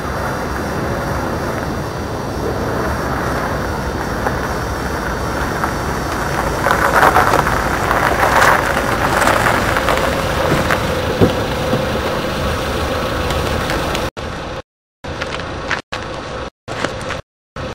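A hatchback car's engine running as the car drives slowly over a snowy car park, getting louder about seven to nine seconds in as it comes close. Near the end, the sound cuts out several times briefly.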